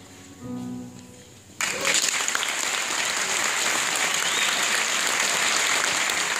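A final piano note rings out and fades on a grand piano, then audience applause breaks out suddenly about a second and a half in and carries on steadily.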